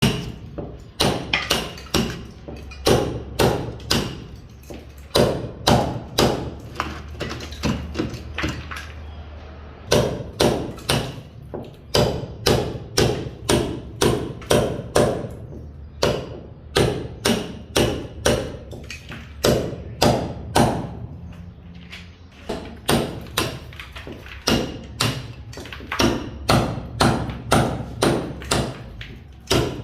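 Construction hammering: repeated hammer blows, about two a second, pausing briefly a couple of times, over a steady low hum.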